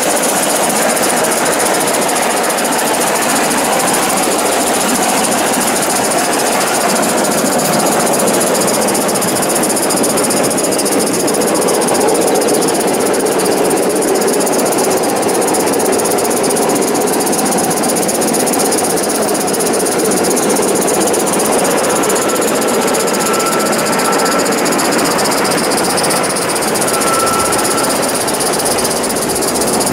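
Accucraft live-steam model of a Southern Pacific F-4 2-10-2 locomotive running with a steady hiss of steam and exhaust.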